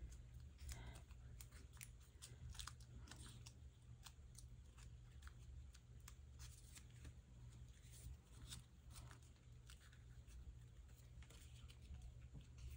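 Near silence with faint scattered clicks and crinkles of stiff vellum paper being handled, over a low steady hum.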